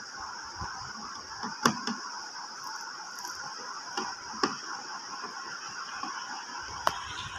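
Five sharp metallic clicks and taps of small screws and a screwdriver being handled while refitting screws on an amplifier, over a steady hiss.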